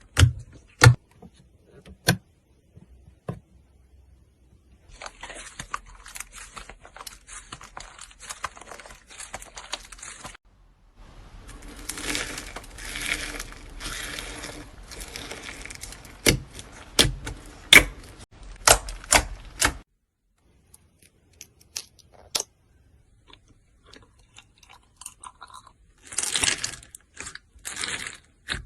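Slime being handled by hand: stretches of dense crackling and sticky tearing, broken by sharp pops and clicks.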